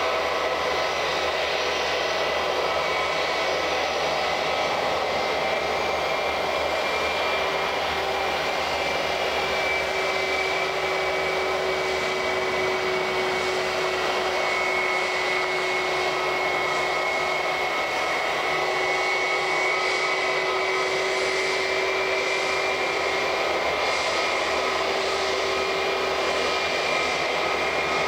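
Jet airliner engines running steadily: a rushing noise with a high whine whose pitch drifts slowly up and down.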